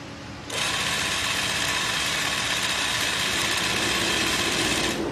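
ZY20U43 industrial zigzag sewing machine running at speed, stitching through denim: a steady, fast mechanical run that starts abruptly about half a second in, over a quieter hum, and stops just before the end.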